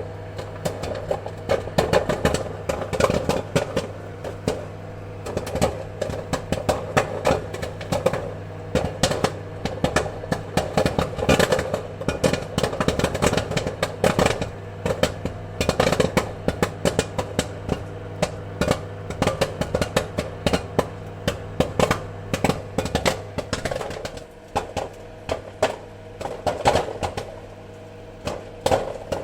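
Popcorn popping: many sharp, irregular pops in quick succession over a steady low hum, thinning briefly past the middle before picking up again.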